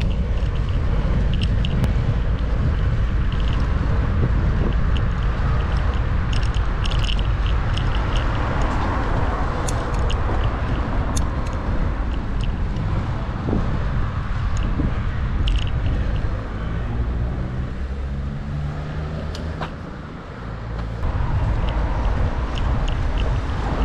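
City street noise heard while riding a bicycle: a steady low rumble of road and wind on the microphone with car traffic, and small scattered clicks and rattles. The noise drops briefly near the end, then picks up again.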